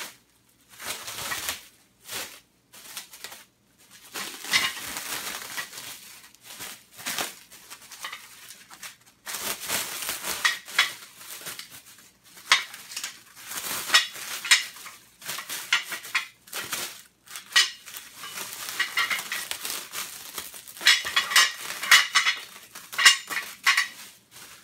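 Clear plastic wrap crinkling and rustling in irregular bursts as it is pulled off the extractor's metal legs, with occasional sharp metallic clinks of the legs being handled.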